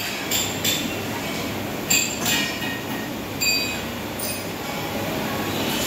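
Iseki 3510 tractor's diesel engine running steadily, with several sharp metallic clinks over it.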